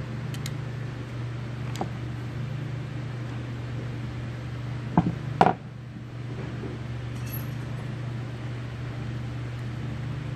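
Small metallic clicks of hand tools and carburetor parts being handled on a workbench, with two sharp clicks about five seconds in, over a steady low hum.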